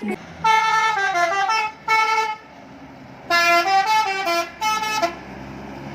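A bus's multi-tone telolet horn playing two short melodic phrases, each about two seconds of stepping chord-like notes, with a pause of about a second between them.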